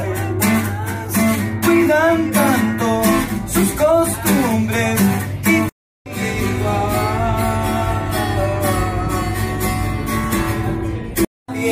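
A man singing to a strummed acoustic guitar. The sound cuts off dead about halfway through, and music with a sung line starts again a moment later.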